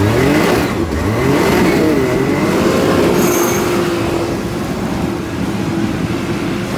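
Side-by-side UTV engine revving up and down, then held at a steady high pitch as the machine is driven hard on dirt, with a rushing noise of wind and tyres underneath.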